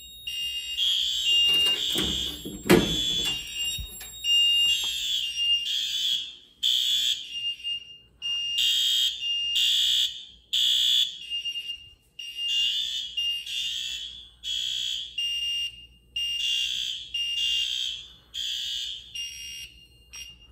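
Fire alarm horns on a Notifier NFS-320 system sounding after a manual pull station has been pulled: shrill blasts about a second apart, mostly in groups of three with a pause between groups (the temporal-three evacuation code), over a thin steady high tone. A loud handling thump comes about two to three seconds in. The horns cut off near the end as the signals are silenced at the panel.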